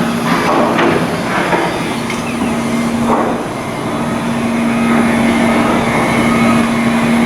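Loud, steady machinery noise with a constant low hum running through it and a few faint knocks.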